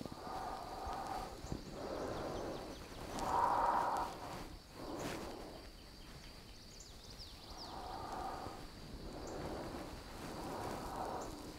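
A woman's slow, audible breathing: soft inhales and exhales, each about a second long, following one another every second and a half or so.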